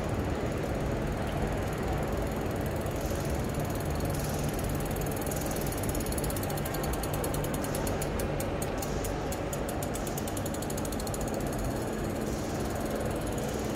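City street ambience: steady traffic rumble, with a rapid mechanical ticking like a ratchet passing for a few seconds in the middle.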